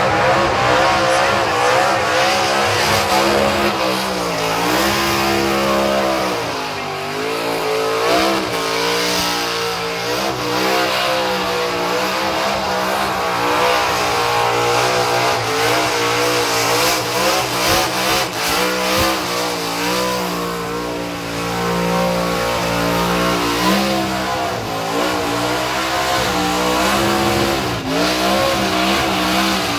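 Burnout car, a Ford XC Falcon ute, with its engine held at high revs while the rear tyres spin and smoke, the engine note rising and falling continuously as the throttle is worked, over the hiss of the spinning tyres.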